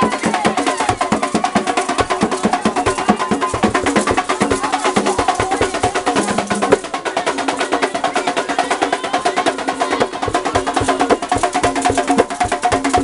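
Traditional dance music: drums and fast, dense clicking percussion in a steady, unbroken rhythm.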